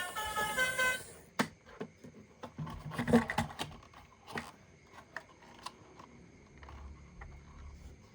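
A short electronic tune that cuts off about a second in. Then come scattered clicks and light knocks of plastic toy vehicles being handled.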